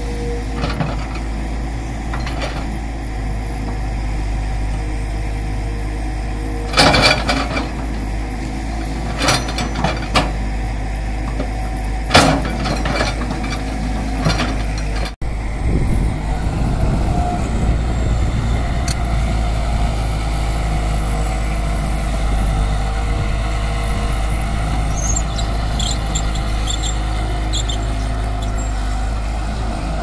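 Tata Hitachi Super+ crawler excavator's diesel engine running steadily under load as it digs and swings. A few sharp clanks and hisses come in the first half, around the bucket work.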